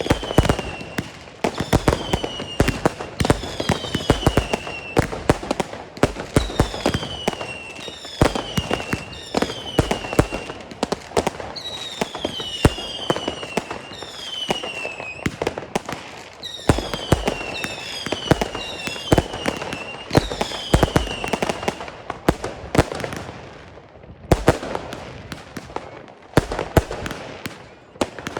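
Consumer firework batteries firing in rapid succession: repeated shots, each rising with a whistle that falls in pitch and ends in a bang. About 22 seconds in the whistles stop, and after a short lull the shots go on as plain bangs without whistles.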